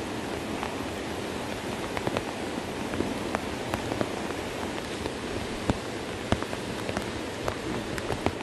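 Steady rain: an even hiss with irregular sharp drop ticks scattered through it.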